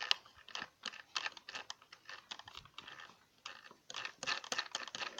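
Irregular plastic clicks and light rattles from a small remote-control toy car being handled and turned over by hand, with no motor running.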